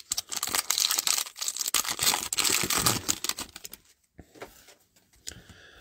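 Trading-card pack wrapper crinkling and cards being handled: a dense run of crackling and clicks for about four seconds, then a few faint ticks.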